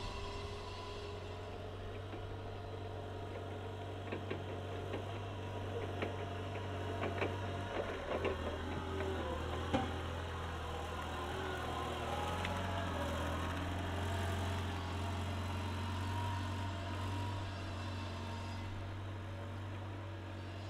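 Linde H30T forklift truck's LPG engine running steadily as the truck drives up close and then away over block paving. It grows louder as the truck comes near and eases off as it drives away. Between about 4 and 10 seconds in there is a run of sharp knocks and rattles.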